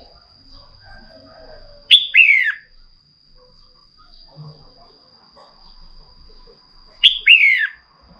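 Female red-whiskered bulbul giving two short calls about five seconds apart, each a sharp note followed by quick falling whistles. A steady high thin tone runs underneath.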